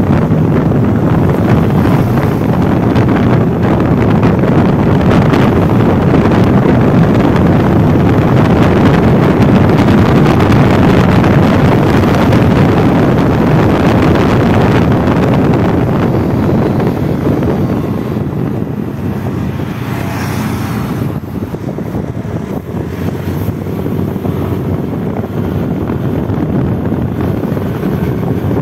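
Wind buffeting the microphone of a moving motorcycle, mixed with its engine and road noise, while riding at speed. The noise eases somewhat about two thirds of the way in, then builds again.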